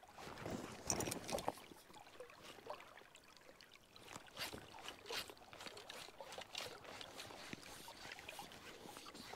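River water splashing and sloshing in irregular bursts, the strongest about a second in and several more in the middle.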